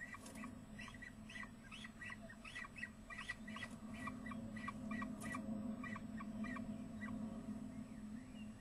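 Peregrine falcon calling: a rapid run of short chipping notes, about three a second, that stops about seven seconds in. A steady low hum runs underneath.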